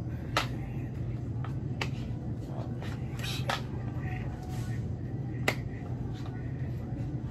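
Supermarket background: a steady low hum, with four sharp clicks spread a second or two apart.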